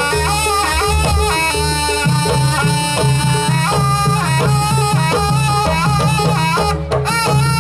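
Live Jaranan ensemble music: a shrill, wavering reed-pipe (slompret) melody over a steady pattern of drums and gongs.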